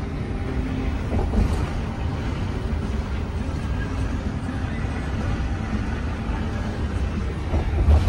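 Motorhome cab noise at highway speed: a steady low rumble of engine and tyres with road hiss.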